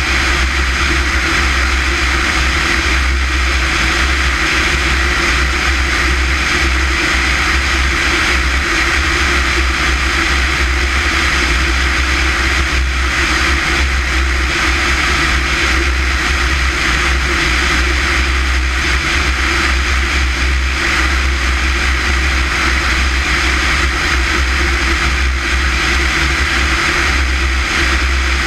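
Steady, unbroken drone of a small propeller airplane's engine in level flight, mixed with rushing airflow.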